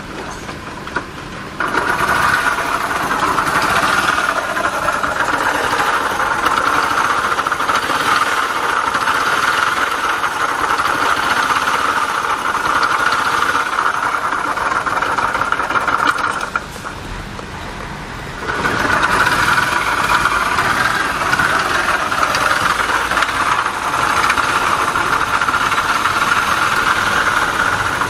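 Honda Little Cub's small single-cylinder engine running with a steady, high binding noise from the transmission, the sign of a failing bearing in the gearbox. The noise drops back twice for about two seconds, at the start and about two-thirds of the way through, then returns.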